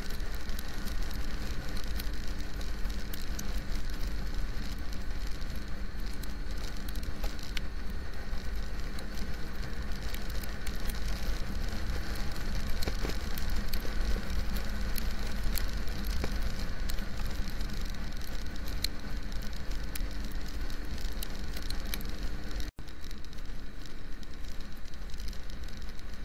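Motorcycle riding at speed on a highway in the rain: heavy wind rumble on the microphone over a steady engine note, with raindrops ticking on the camera. The sound breaks off for a split second near the end.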